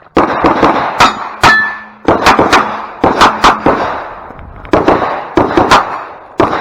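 Revolver firing a fast string of shots in groups of two to four with brief pauses between them, as in a USPSA stage. A metallic ring follows one of the early shots, like a hit on a steel target.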